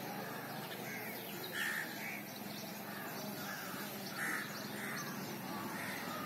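Birds calling: a run of short, repeated calls, about two a second, some close together.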